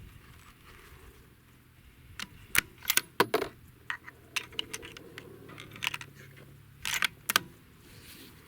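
Irregular sharp clicks and short metallic rattles of small gear being handled, a few of them loud, clustered from about two seconds in until near the end.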